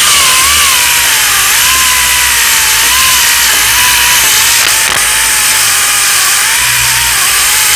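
8-inch orbital sander with 40-grit paper running against cured short-strand fiberglass body filler, a steady rasping hiss with a motor whine that wavers up and down in pitch as the sander is pressed and moved across the panel.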